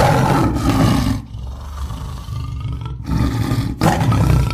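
Tiger roaring: a long, rough roar that fades about a second in, a quieter low rumble, then a second roar starting about three seconds in.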